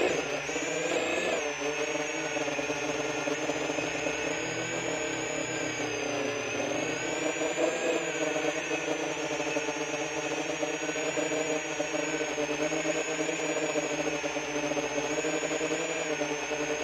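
10-inch FPV quadcopter's motors and propellers whirring steadily, recorded onboard by the drone's own camera unit; the pitch wavers slightly up and down as the throttle changes.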